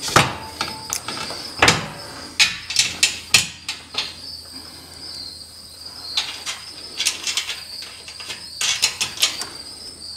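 Scattered metal clicks and clinks in small clusters as bolts and nuts are fitted by hand into a steel garage-door track and its flag bracket. A steady high cricket trill runs underneath.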